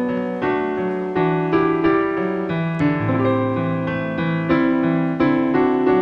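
Background piano music: a gentle melody of separate notes, a new one about every half second, over lower held notes.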